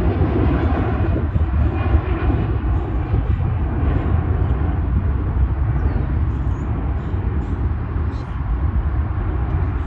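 Jet airliner taking off: a steady deep rumble of engines and airframe, with the higher-pitched part of the noise gradually fading.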